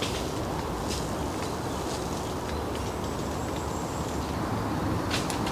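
Steady hiss of woodland ambience, wind moving through the trees, with a few faint ticks and snaps scattered through it.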